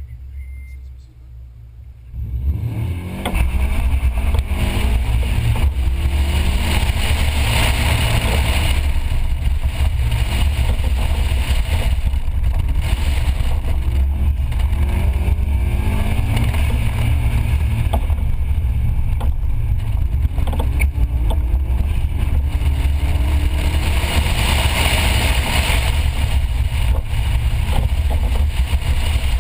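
Subaru Impreza WRX STi's turbocharged flat-four engine being driven hard, its pitch rising and falling again and again with throttle and gear changes. It comes in loud about two seconds in, after a quieter start.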